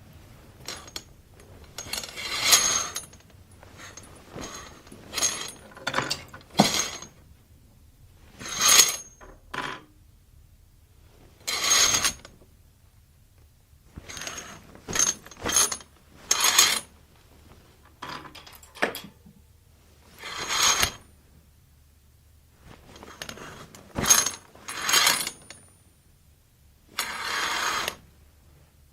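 A curtain being pulled to and fro on its rod again and again: about twenty short swishing slides, each up to a second or so long, with a light metallic ring in several of them.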